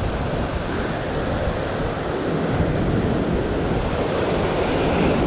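Ocean surf breaking and washing over coastal rocks in a steady rush, with wind buffeting the microphone.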